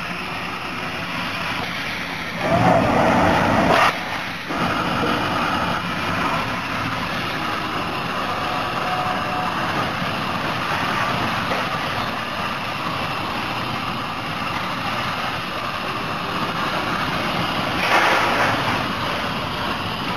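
Steady machine noise, with a louder hiss about two and a half seconds in that lasts over a second, and another near the end.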